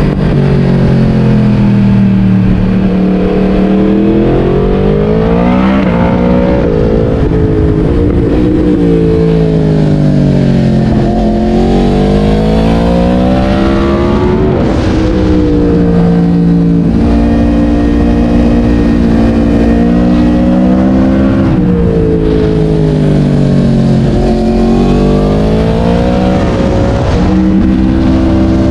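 Yamaha MT-10's crossplane inline-four engine, breathing through a LeoVince decat exhaust, under hard riding. Its pitch climbs and falls again and again as the bike accelerates and slows, with a steadier stretch in the middle.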